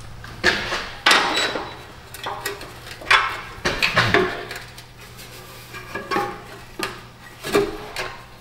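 Irregular sharp metallic clanks and knocks of an exhaust U-bolt clamp and hand tools being fitted at the joint between the exhaust pipe and a new muffler.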